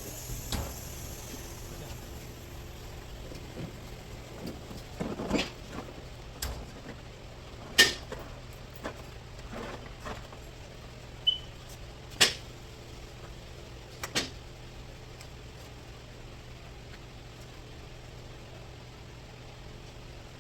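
Scattered sharp clicks and knocks of hand tools and car parts being handled during radiator work, a few seconds apart, over a steady low hum.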